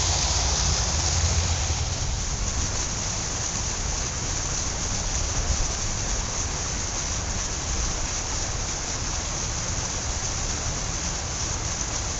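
Artificial waterfall pouring over concrete rocks into a small pond: a steady rushing of falling water.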